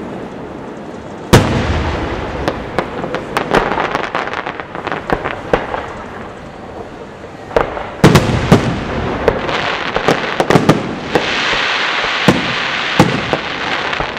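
Aerial firework shells bursting: a heavy bang a little over a second in, followed by a run of smaller sharp reports. A second heavy bang comes about eight seconds in, then dense crackling over a steady hiss near the end.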